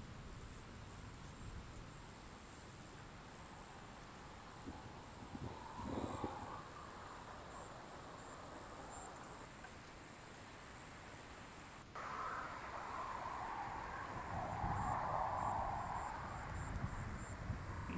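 Crickets chirping in a steady, high-pitched chorus, with low rumbling swells about six seconds in and again through the second half.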